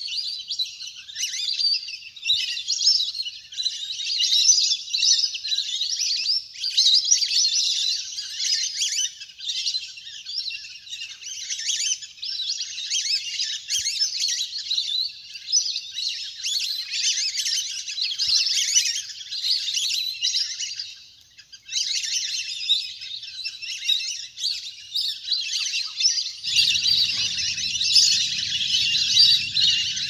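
A large flock of whistling ducks calling together, a dense, unbroken chatter of high whistles. The calls thin out briefly about two-thirds of the way through, and a low hum joins near the end.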